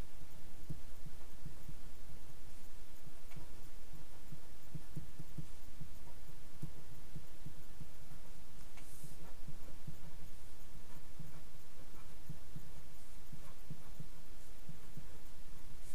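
Felt-tip pen writing on paper, heard as faint scratches and ticks over a low, throbbing hum.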